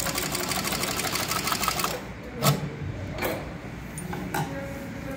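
CowBoy CB6900 cylinder-bed, triple-feed leather sewing machine, driven by a quiet positioning servo motor, stitching through leather at a rapid, even rate for about two seconds and then stopping. A sharp knock follows, then a couple of lighter clicks.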